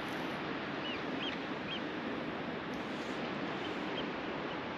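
Steady hiss of surf on the shore, with a few faint short high bird calls: three close together about a second in, then two fainter ones later.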